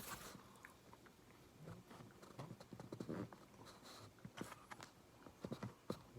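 Faint chewing and biting of food, heard as irregular clicks and smacks of the mouth.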